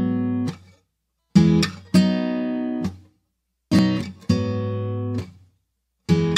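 Background music: an acoustic guitar strumming chords. Each phrase is a quick strum followed by a chord left to ring, repeating about every two and a half seconds with short silences between.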